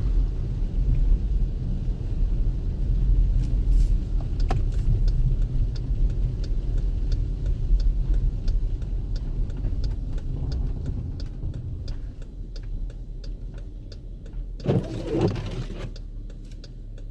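Cabin noise of a 2014 Jeep Grand Cherokee Summit driving on snow: a steady low tyre and drivetrain rumble that eases off over the last several seconds as the vehicle slows. A steady, evenly spaced ticking comes through over the second half.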